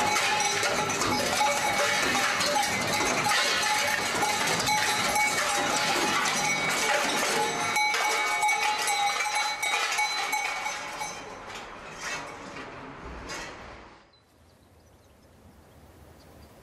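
Jean Tinguely's motor-driven kinetic sculpture 'Ballet of the Poor', built from hanging old clothes and junk, running with a dense clatter and jangle of metal and steady bell-like ringing tones. It fades out from about eleven seconds in.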